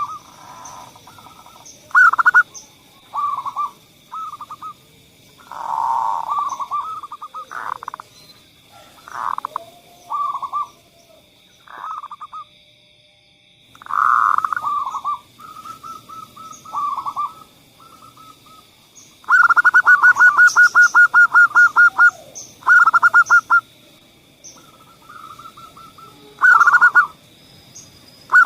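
Zebra doves (perkutut) cooing in short staccato phrases with pauses between them, including a rapid rolling trill of about eight notes a second near the twenty-second mark. A faint steady high tone runs behind the calls.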